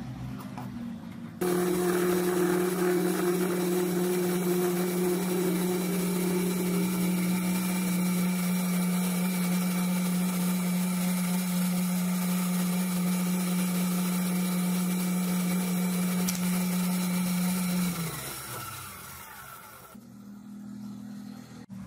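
Small bench metal lathe switched on about a second and a half in, its motor and spindle running with a steady hum while a parting tool cuts the aluminium piston off the bar. Near the end it is switched off and the hum falls in pitch as the spindle winds down.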